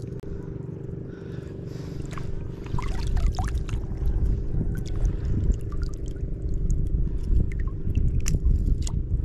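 Shallow seawater sloshing and splashing around a wading angler, with small drips and splashes, over a low rumble of wind on the microphone and a faint steady hum. The sloshing gets louder about three seconds in.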